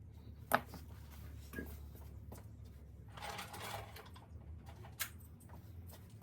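Small metal parts of a rotary hammer drill's gearbox being handled during repair: a sharp click about half a second in, a lighter one, a brief scrape about three seconds in and another click near five seconds, over a low steady hum.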